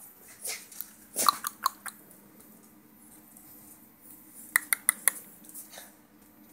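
A handful of short, sharp clicks in two bunches: a few about a second in, then four quick clicks a little over four seconds in.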